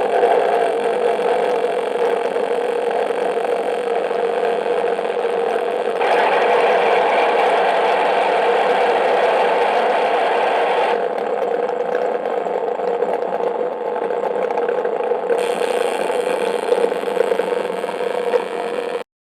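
Harsh noise music: a loud, dense wall of distorted noise over a steady drone. It changes texture abruptly about six, eleven and fifteen seconds in, then cuts off suddenly near the end.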